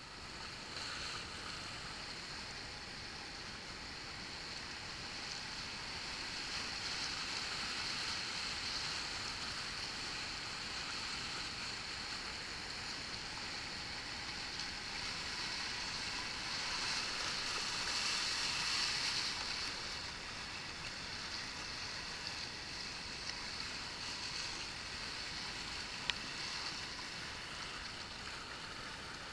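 Whitewater rapids rushing around a kayak: a steady hiss of fast-moving river water that swells to its loudest a little past the middle, then eases. A single sharp click near the end.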